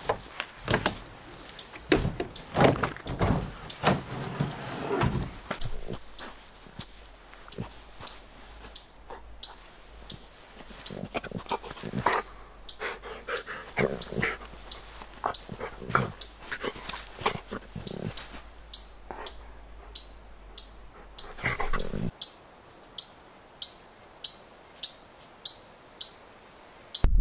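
A dog rustling and rolling about in grass, with a short high chip repeating about twice a second throughout.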